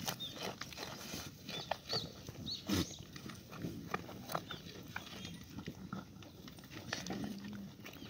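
Goats feeding at a wire fence: leafy stalks tearing and crunching, with snuffling, rustling and scattered clicks, and one louder crack about three seconds in.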